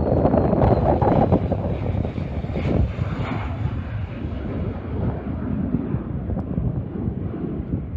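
Jet airliner's engine noise, loudest in the first second or so and then slowly fading as the aircraft moves away.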